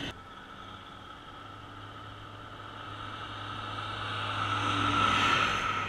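Farm machine's engine running steadily as it approaches and passes close by, growing louder to a peak about five seconds in and then easing off.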